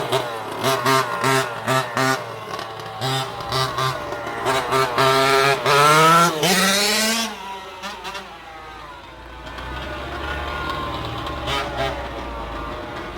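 Small two-stroke petrol engine of a 1/5-scale RC car, blipped in quick throttle bursts, then revved up in a rising whine about six seconds in before dropping back to a quieter, lower steady running.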